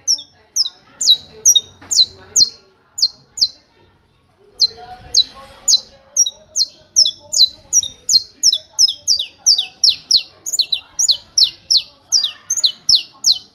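Saffron finch singing a 'martelo' (hammer) song: a long string of sharp, downward-sweeping notes repeated about three a second. The notes break off for about a second near the 4-second mark, then resume faster, about four a second.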